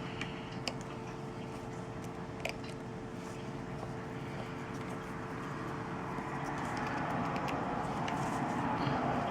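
A steady background hum with a few faint, sharp little clicks of small tools against a phone's plastic frame; the hiss swells slightly toward the end.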